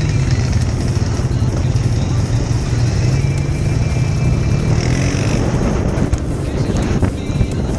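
ATV engine running steadily under way on a gravel trail, a low drone, with tyre and trail noise heard from a helmet-mounted camera.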